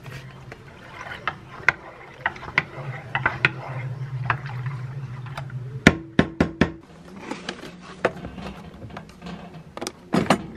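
Wooden spatula stirring milk in a stainless steel rice-cooker inner pot, with light clicks and several sharp knocks against the pot about six seconds in. Near the end comes a loud cluster of clicks as the Cuckoo rice cooker's lid is shut and its locking knob turned.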